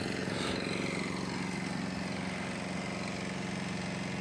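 An engine idling steadily, an even low hum that holds one pitch without change.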